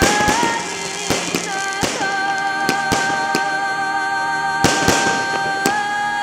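Fireworks going off, with irregular sharp bangs and cracks every second or so, over music with a long held high note.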